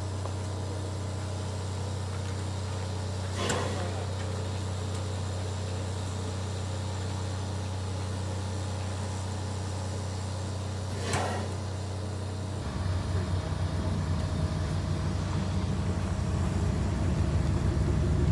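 Shay geared steam locomotive standing with a steady low hum, broken twice by a short burst of noise. About two-thirds of the way through it begins to move off, and a rapid rumbling pulse starts and grows louder.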